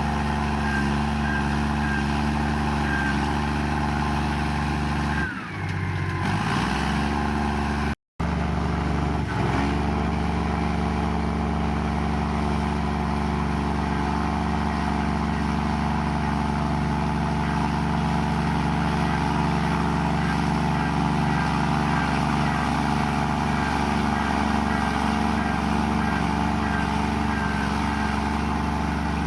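Komatsu bulldozer's diesel engine running steadily under load, its pitch dropping and picking back up about five seconds in. A brief complete dropout cuts the sound near eight seconds.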